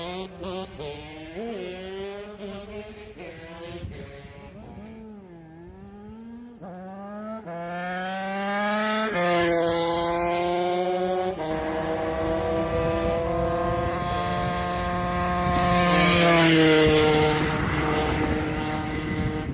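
Yamaha DT50X two-stroke engine, a Minarelli AM6 with a ported 86cc Top Alu cylinder, accelerating hard through the gears. The pitch climbs and drops sharply at each of several upshifts, then holds high at full revs and eases off near the end.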